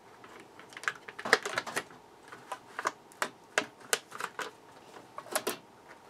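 Irregular sharp clicks and light knocks of a ballast's fibreglass circuit board being worked by hand out of its metal casing, the board edges knocking against the sheet metal.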